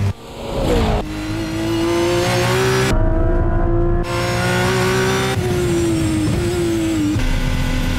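Hypercar engine at high revs, heard in short shots cut together: a loud, steady engine note that creeps upward, then falls away as it comes off the throttle, and after an abrupt cut about seven seconds in settles on a lower steady note.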